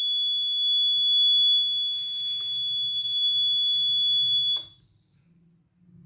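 Piezo alarm buzzer sounding one steady, high-pitched tone, the fire alarm's alert for a detected fire, with a faint low hum beneath it. It cuts off suddenly about four and a half seconds in.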